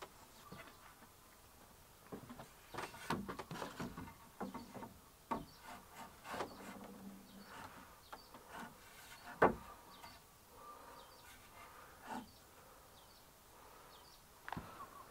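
Sawn wooden boards knocking and scraping against each other as a long board is lifted and set onto a timber frame: scattered knocks and rubs, the loudest a sharp knock a little past the middle.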